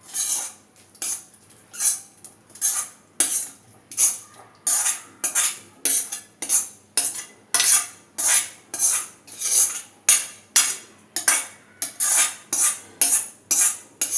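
A spoon scraping around a pan in steady, regular strokes, about three every two seconds, as vegetables are stirred into a thick white sauce.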